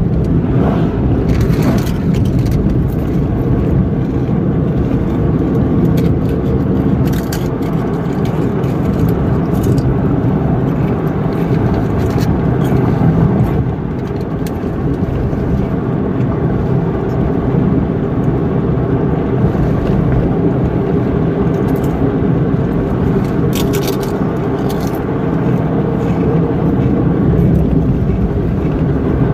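Steady engine and road noise of a car driving.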